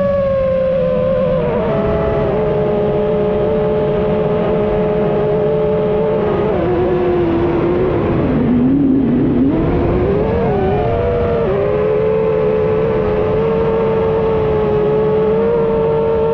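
Reddy 1.3 FPV quadcopter's motors and propellers whining in flight over steady rushing noise. The pitch follows the throttle: it sinks to its lowest about halfway through, then rises again and holds steady.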